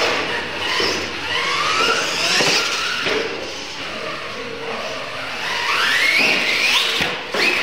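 RC monster trucks accelerating hard across a concrete floor: their electric motors whine, rising in pitch as they gain speed, over tyre scrub. A second rising whine comes near the end.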